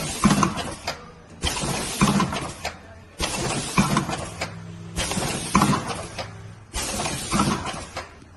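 A CFGB 80 tea dosing and cup-sealing machine running through its cycles. A sudden burst of hiss with knocks and clinks repeats about every two seconds and fades between strokes.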